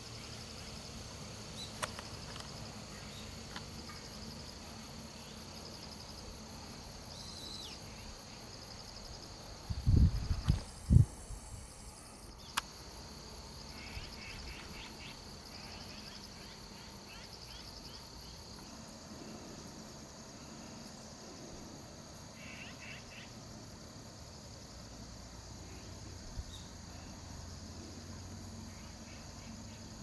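Insects chirping and trilling, a high, fast pulsing with shorter chirping calls now and then. About ten seconds in come a few dull, low thumps.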